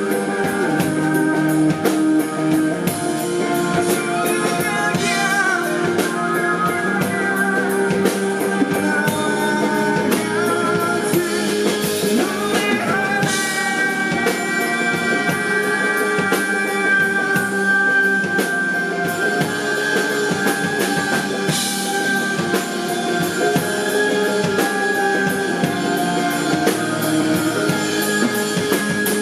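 Rock band playing live: drum kit, electric guitars and bass, with singing.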